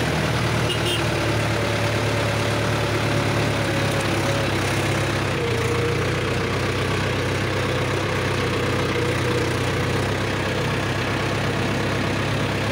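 Mahindra Yuvo 575 DI tractor's four-cylinder diesel engine running steadily under way, heard from the driver's seat, its pitch dipping slightly about five seconds in.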